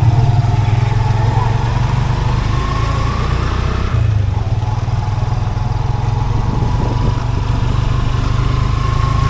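Motorcycle engine of a passenger tricycle running steadily under way, heard from inside the sidecar cab: a loud low drone with a faint whine that slowly rises, and a brief change in the drone about four seconds in.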